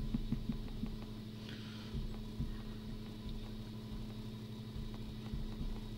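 Keys of a calculator being pressed: a quick series of light clicks in the first second, then a few soft taps, over a steady low hum.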